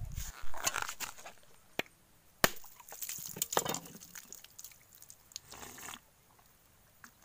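A blade chopping and scraping at a coconut: a few sharp separate knocks with short scraping sounds between them.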